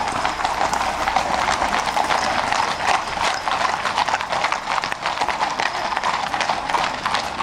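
Hooves of a group of ridden horses clip-clopping on a tarmac road, with many overlapping strikes in an irregular patter.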